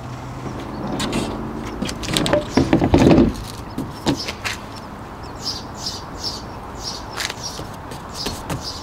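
Hinged roof panel of an A-frame camper being lowered and shut by hand. It slides and rubs, with clunks loudest about three seconds in, then a few light knocks follow. A small bird chirps repeatedly in the second half.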